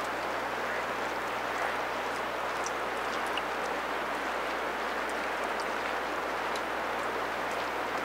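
Steady outdoor rushing noise at an even level, with a few faint, very short high ticks scattered through it.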